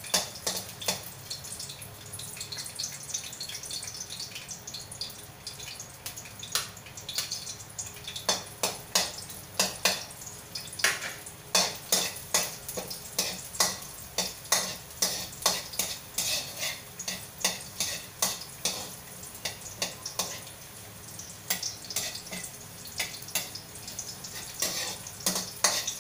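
Garlic frying in oil in a metal wok with a steady sizzle, while a metal ladle clinks and scrapes against the wok. The clinks come in quick runs of about two a second from about a third of the way in.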